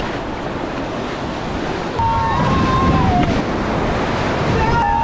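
Flood-swollen river rapids rushing in a loud, steady roar, with wind buffeting the microphone; the roar grows louder about two seconds in. Two short high tones cut through it, once in the middle and again near the end.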